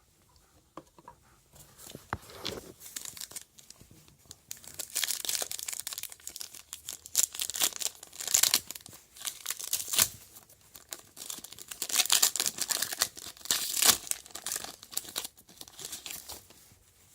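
Wrapper of a baseball card pack being torn open and crinkled by hand, in a crackling run of tears and rustles with a couple of sharp cracks partway through.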